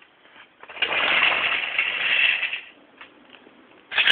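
A toy train rolling along its track: a steady rolling noise for about two seconds, starting just under a second in, then stopping.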